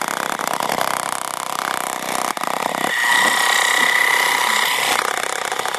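Hexbug Bobble Bot, a small battery-motor toy inside a clear plastic ball, buzzing and rattling as it rolls across a hard floor. A high steady whine joins in about three seconds in and lasts about two seconds.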